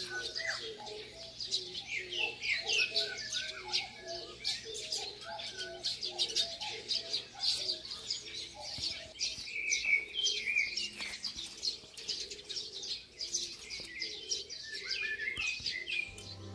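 Songbirds chirping busily, with many quick high calls overlapping. Through the first half, a low two-note cooing phrase repeats about twice a second.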